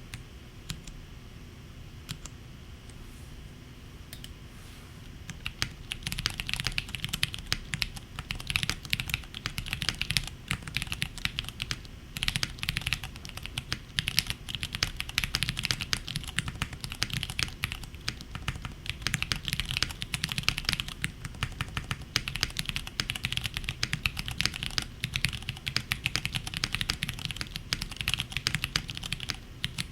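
Neo70 mechanical keyboard with Cherry MX Purple switches being typed on: a few scattered keystrokes, then steady fast typing from about five seconds in.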